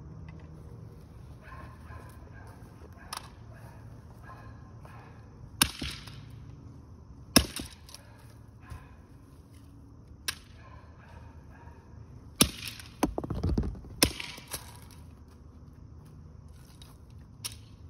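Sledgehammer blows smashing a plastic Xbox controller, the casing cracking and breaking. There are about eight separate sharp hits at uneven intervals, with a short burst of rattling clatter a little past the middle.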